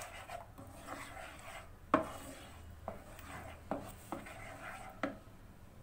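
Spoon stirring a thickening mango, sugar and milk-powder mixture in a pan, kept moving so it does not stick: faint scraping with about five sharp knocks of the spoon against the pan, the loudest about two seconds in.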